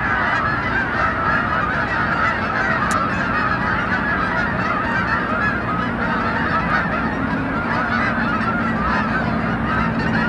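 A flock of geese honking, many calls overlapping into a continuous steady chorus.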